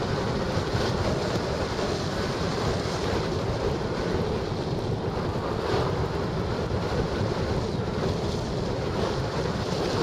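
Steady wind noise from air rushing over the microphone of a camera mounted on a hang glider in flight.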